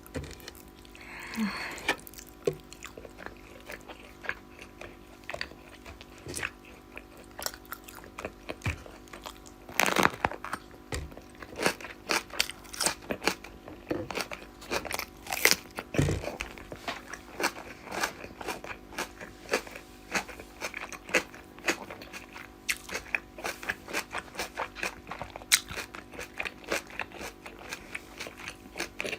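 A person chewing and biting food close to the microphone: a meal of rice with rohu fish curry and fried sides. It gives a steady run of many short, sharp crunches and mouth clicks.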